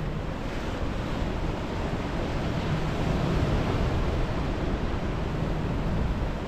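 Ocean surf breaking and washing over rocks, a steady rushing that swells a little midway, with wind on the microphone.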